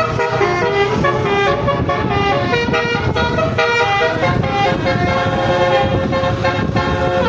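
Indonesian bus "telolet" multi-tone air horn (Basuri type) playing a tune, its notes stepping up and down in quick succession without a break, over a low engine and street rumble.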